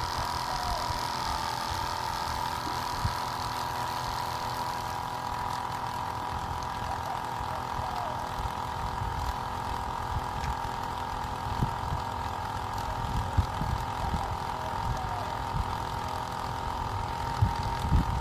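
Wassermann 12V self-priming RV water pressure pump running with a steady whine while the water is shut off, failing to cut out at its pressure switch.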